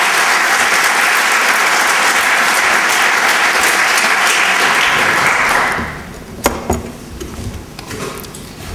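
Audience applauding, then dying away about six seconds in. A few scattered knocks follow.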